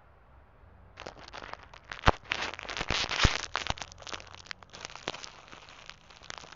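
Crinkling and crackling of plastic handled close to the microphone. It starts about a second in as a dense run of sharp crackles, is loudest around the middle, and thins out toward the end.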